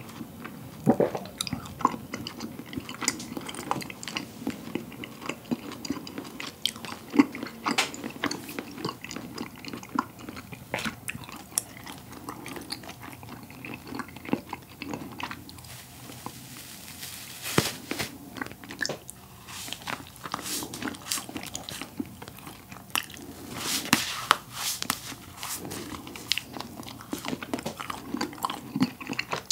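Close-miked mouth sounds of biting and chewing slices of compressed cotton candy softened by coffee: many scattered wet clicks and smacks, thicker in two spells in the second half.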